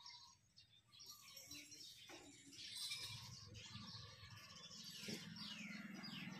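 Faint chirping of several small birds: many short, overlapping, falling calls that grow busier and louder from about a second in.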